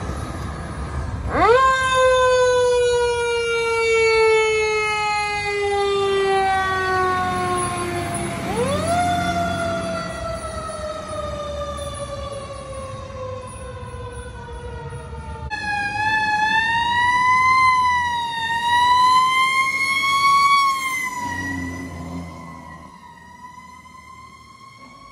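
Fire apparatus sirens on an emergency run. Twice a siren winds up fast and then falls slowly in pitch over several seconds. About 15 seconds in, a wavering wailing siren takes over and fades toward the end, over the rumble of the trucks' engines.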